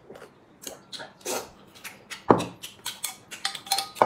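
Slurping and gulping of broth drunk straight from a large ceramic soup bowl, mixed with the clatter of dishware. A sharp knock of a bowl on the table comes about two seconds in, and another near the end.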